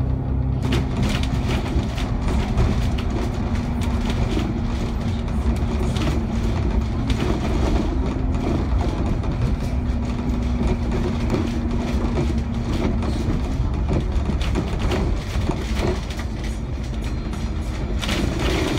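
ADL Enviro500 MMC double-decker bus cruising, heard from inside the upper deck: a steady drivetrain hum over road rumble, with frequent small rattles from the body and fittings. A steady tone in the hum dips and fades out about thirteen seconds in.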